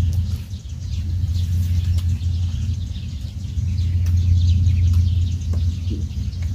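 Small birds chirping in quick short calls over a steady, loud low rumble that runs throughout.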